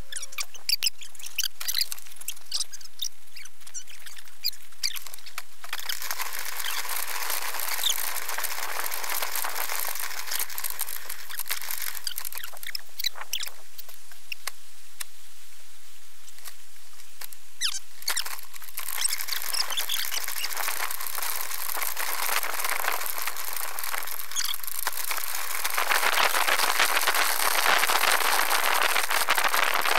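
Rapid clicking from a bicycle being walked along, then a steady rush of a river running high in flood, which grows louder and fuller for the last few seconds.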